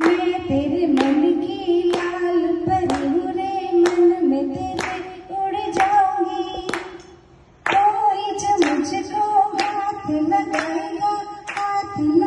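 A woman sings a melody into a handheld microphone, amplified through a loudspeaker, while people clap along in time about once a second. Her singing breaks off briefly about seven seconds in, then resumes.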